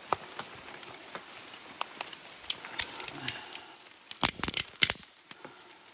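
Pieces of freshly split dry kindling being gathered and handled: scattered light wooden clicks and rustling, with a quick cluster of sharper cracks about four seconds in.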